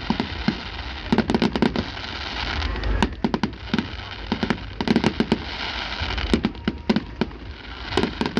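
Fireworks going off: rapid clusters of sharp bangs and crackles every second or two, over a steady low rumble.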